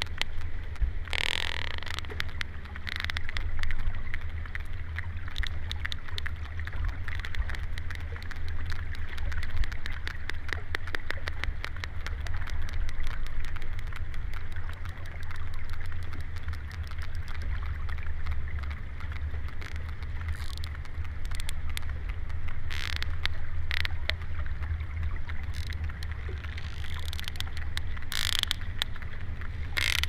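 Sperm whales clicking underwater: a dense stream of sharp clicks over a steady low rumble, with a few louder clicks standing out now and then. These are the whales' social coda exchanges, a family 'conversation' of repeated click patterns.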